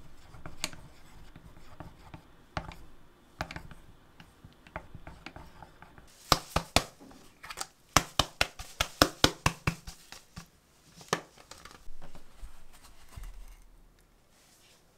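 A wooden chopstick stirring in an enamel mug with light scrapes and clinks, then a metal spice shaker shaken over a quiche, giving a quick run of sharp clicks, about four or five a second, for several seconds.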